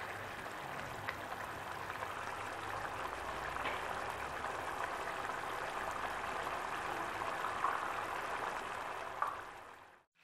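Thick tomato-and-spice fish curry simmering in a kadai, a steady bubbling sizzle with an occasional small pop. It fades out just before the end.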